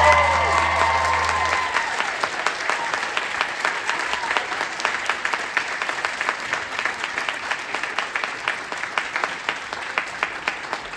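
Audience applauding, with whoops and cheers over the song's last held low note, which ends about a second and a half in. The clapping then carries on and slowly fades.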